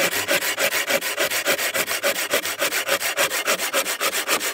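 Laplander folding saw cutting through a branch with the bark on, in rapid, even back-and-forth strokes of the blade rasping through the wood.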